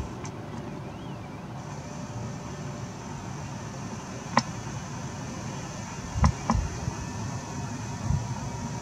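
Steady outdoor background rumble and hiss, with a single sharp click about four seconds in and two quick knocks with low thumps about six seconds in.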